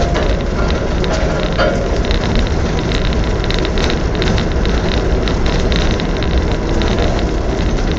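Land Rover driving slowly off-road along a leaf-covered dirt lane: a steady low rumble of the vehicle with a constant crackling over it, as the tyres roll over dry leaves and twigs.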